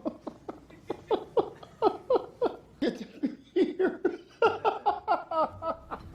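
A person laughing in a long, rhythmic run of 'ha-ha' bursts, about four or five a second, each sliding down in pitch; the laughter shifts higher partway through.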